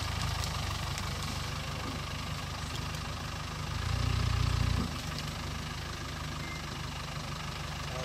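Safari game-drive vehicle's engine idling with a steady low rumble, swelling briefly about four seconds in.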